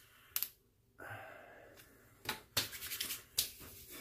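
A plastic bottle of HeadBlade Head Lube lotion being opened and used: a sharp click of the cap under half a second in, then a cluster of small clicks and rattles in the second half.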